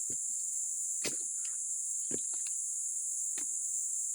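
Steady, high-pitched chorus of insects shrilling without a break. Four short thuds about a second apart sound under it.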